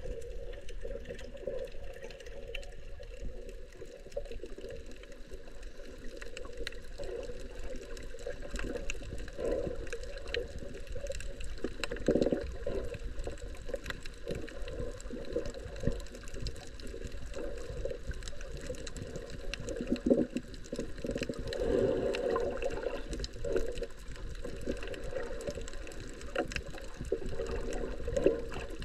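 Muffled underwater sound heard by a camera just below the sea surface: water sloshing around it, with many faint clicks and crackles and a few louder surges.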